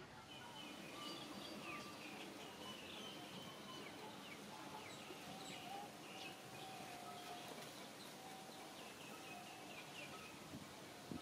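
Faint outdoor ambience with small birds chirping over and over in short high calls, with a few longer held tones, and a brief bump near the end.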